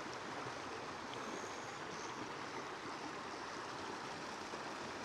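Rainwater from a storm drain (nala) running high after heavy rain, with a steady rushing sound.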